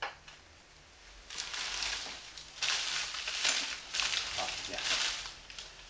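Packaging being handled and rustled: a run of irregular crinkling, rustling bursts that starts about a second in and carries on for several seconds.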